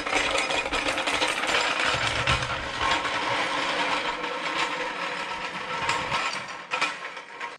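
A running engine close by, with a fast, dense mechanical clatter over a steady hum. It cuts off abruptly near the end.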